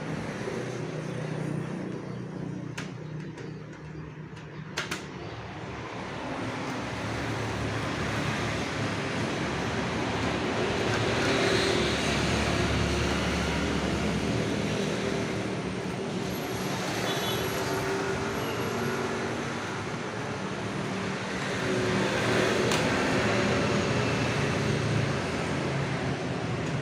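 Steady background noise of road traffic that swells and fades, with a sharp click about five seconds in.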